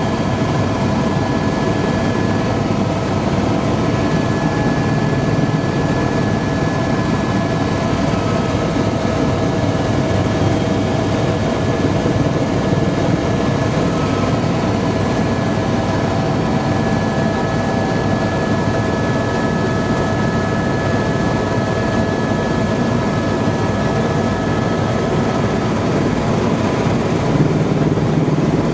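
Helicopter in flight heard from inside the cabin: a loud, steady drone of engine and rotor with a few constant whining tones on top.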